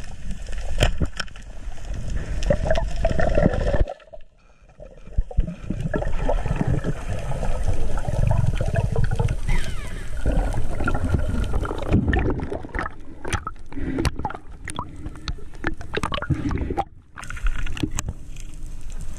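Underwater sound of water gurgling and sloshing, with many sharp clicks scattered throughout. It drops out abruptly about four seconds in and again near the end.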